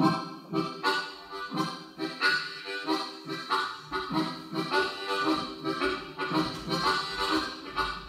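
Solo harmonica playing a chugging train-rhythm tune, its chords pulsing about twice a second.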